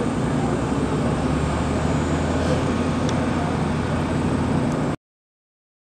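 Large truck engine idling steadily, with a low hum under outdoor noise. It cuts off suddenly about five seconds in.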